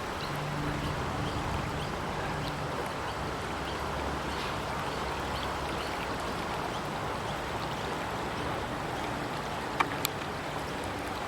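Steady outdoor noise by a river, with a faint intermittent low hum and two sharp clicks about ten seconds in.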